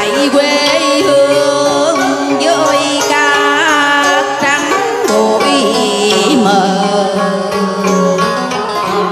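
A woman singing a Vietnamese cải lương vocal line with a wavering vibrato, amplified through a microphone, over a continuous instrumental accompaniment.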